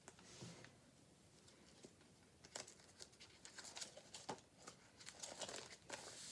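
Near silence, with a few faint rustles and light taps scattered through it, like small handling noises.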